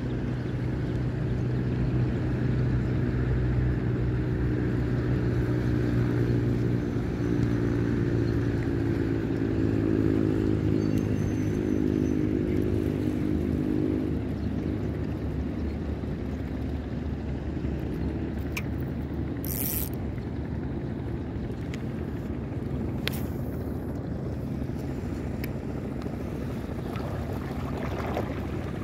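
A boat engine running steadily, loudest in the first half and then fading away. There is a brief hiss about two-thirds in and a few faint clicks.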